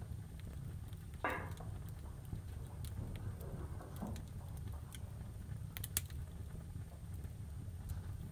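Steady low hum of room tone, with a short rustle about a second in, a softer one a couple of seconds later and a few faint clicks.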